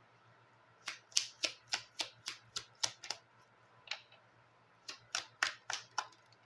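A quick series of sharp clicks from oracle cards being handled on the table: about nine in a row at roughly four a second, a single one, then about five more.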